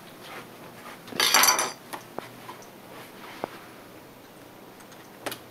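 A brief clatter of objects being handled, about a second in, followed by a few light knocks and clicks.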